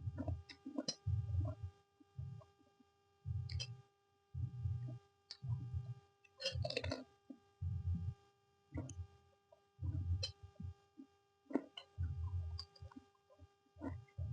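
A person chewing a mouthful of fried noodles close to the microphone: a low, muffled chewing sound about once a second, with small wet clicks and smacks of the mouth.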